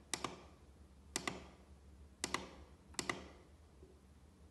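Push-button on a Danfoss programmable room thermostat pressed four times, about once a second. Each press gives a sharp double click as the button goes down and comes back up.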